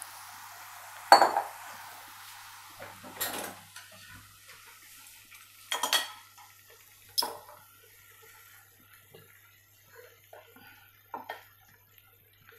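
A few sharp clinks and clanks of a utensil against a cooking pot, the loudest about a second in and the rest spread out singly. A steady hiss dies away about two seconds in.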